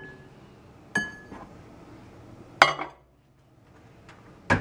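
Ceramic bowl clinking against the glass turntable of a microwave oven as it is set inside: two ringing clinks about a second and a half apart, then a sharp knock near the end.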